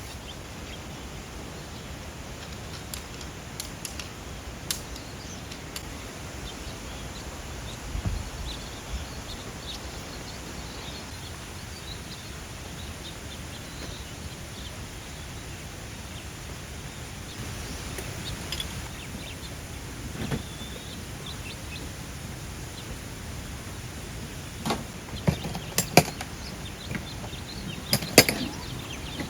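Steady outdoor background noise with faint bird chirps, and a handful of sharp knocks and clicks near the end.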